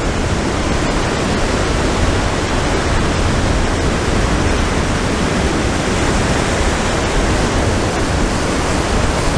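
Steady loud rush of breaking surf mixed with wind buffeting the microphone.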